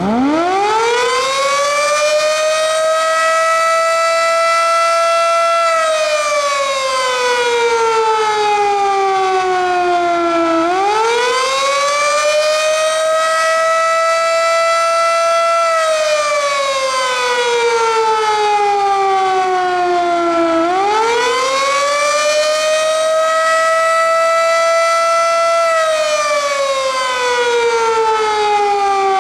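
Darley 3V8 outdoor warning siren winding up and sounding the Attack signal: one loud tone that climbs, holds for a few seconds, then slowly sinks and climbs again, about every ten seconds.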